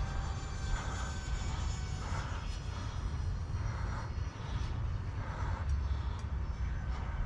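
Twin 30 mm electric ducted fans of a UMX A-10 Thunderbolt II RC jet whining steadily as it flies high overhead, over a steady low rumble.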